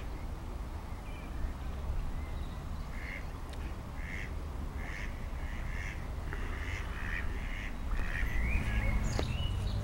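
Ducks quacking: a run of short, repeated calls, several a second, in the middle of the stretch.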